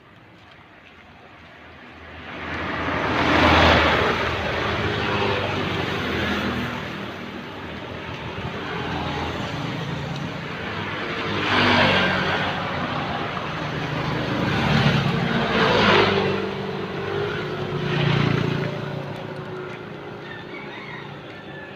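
Road vehicles passing one after another, each rising and fading away, about four in all. An engine hum lingers after the last one.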